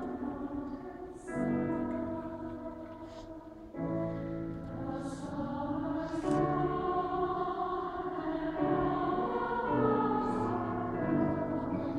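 Mixed choir of men's and women's voices singing a slow Irish song in long held chords that change every couple of seconds, echoing through a large stone cathedral.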